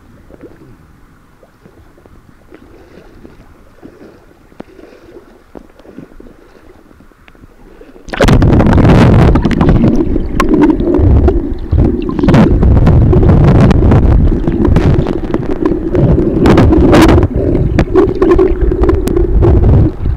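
Faint river current at first. About eight seconds in, the microphone goes under the water, and the sound jumps to a loud underwater rush of the current with frequent sharp knocks and clicks.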